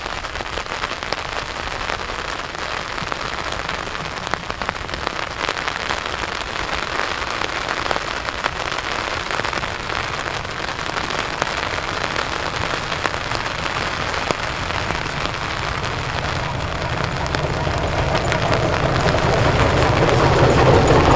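Steady rain falling, with many separate drops ticking sharply. A low rumble builds and grows louder over the last few seconds.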